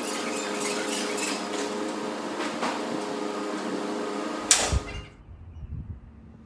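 Steady mechanical hum with scattered light clicks, broken by a single heavy thump about four and a half seconds in, after which only a quiet low rumble remains.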